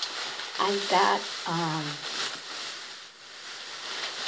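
Plastic shopping bag rustling and crinkling as items are dug out of it. A woman's voice murmurs briefly twice about a second in.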